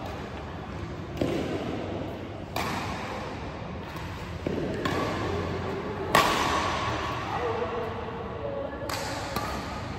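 Badminton racket strikes on a shuttlecock: sharp cracks a second or two apart, about five in all, each ringing on in a large echoing hall.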